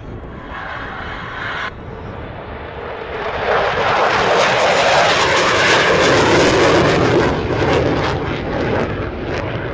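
Military aircraft flying past low, its engine noise building up to a loud peak about four to seven seconds in and then fading away.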